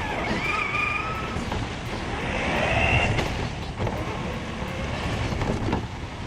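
Electric motor of a Tamiya Lunchbox RC car whining as it drives, its pitch rising and falling as the throttle changes, over a steady rushing noise with a few sharp clicks.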